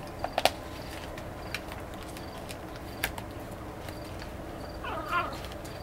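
Puppies eating from a shared plastic feeding dish: a few sharp clicks and clacks of food and teeth against the dish. A short squeaky whine comes about five seconds in.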